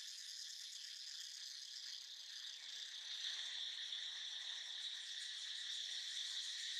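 A steady, high-pitched chorus of insects, growing a little louder about three seconds in.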